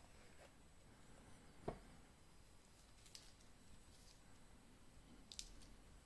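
Near silence broken by three faint clicks and taps from hands handling a wristwatch and its metal link bracelet on the wrist, the loudest about a second and a half in.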